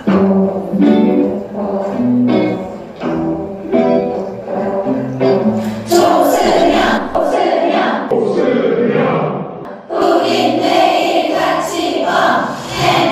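A man singing a cheery song over music, with short chanted syllables. The sound gets fuller and denser about six seconds in.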